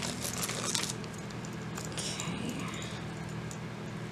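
Costume jewelry clinking and jangling as it is handled: a short cluster of light metal clinks in the first second, then a few scattered clicks.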